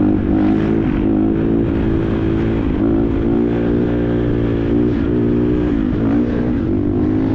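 Motorcycle engine running while riding. Its note dips briefly in pitch and climbs back about once a second, over a low rumble.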